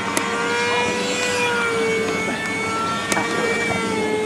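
Electric radio-controlled model plane's motor whining steadily in flight, its pitch drifting slightly up and then down. Two sharp clicks come about a quarter second in and about three seconds in.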